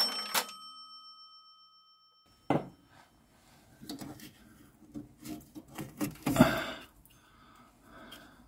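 A cash-register 'ka-ching' sound effect rings out and fades over the first two seconds. Then comes a sharp knock, followed by scattered knocks, clicks and rubbing as the rubber rear sway-bar bushing is worked off the steel bar by hand, with the loudest scrape about six seconds in.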